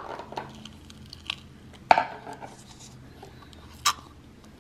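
Plastic syringe being worked in a plastic beaker of thick gel mixture as it is drawn up: scattered clicks and knocks of plastic on plastic, with sharp ones at the start, about two seconds in and near the end.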